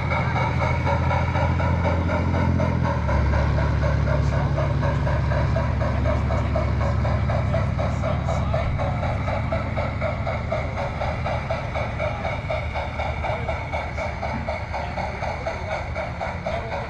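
G scale model train running on its track: a steady mechanical running sound with a fast, even rhythmic clatter. It grows a little fainter in the second half as the train draws away.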